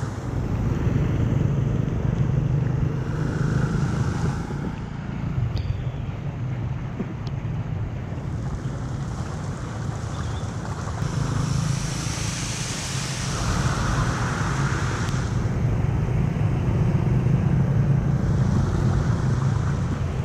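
Floodwater rushing steadily down a street drain, a continuous churning rush of water.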